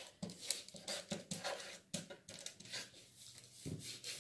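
Felt-tip marker writing on a large sheet of paper: a quick series of short, faint scratching strokes as the tip is drawn across the paper.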